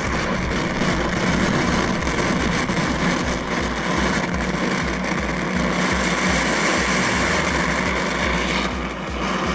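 Oxy-fuel cutting torch burning with a steady, loud rushing hiss, its flame freshly tuned to a blue cutting flame.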